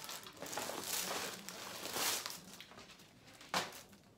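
Clear plastic packaging crinkling and rustling as it is handled, in short uneven bursts, with one sharper crackle about three and a half seconds in before it goes quieter.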